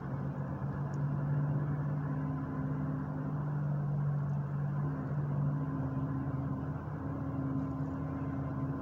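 Bus running at speed, heard from inside the cabin: a steady low drone of engine and road noise with an even engine hum.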